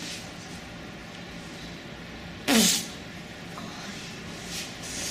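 A single short fart about two and a half seconds in, under half a second long, its pitch dropping as it ends.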